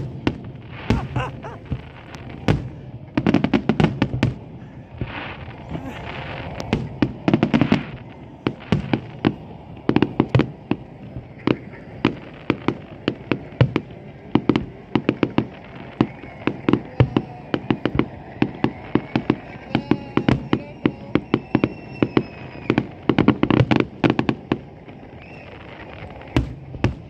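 Fireworks display: a continuous run of sharp bangs and crackles, rising into dense rapid-fire volleys several times.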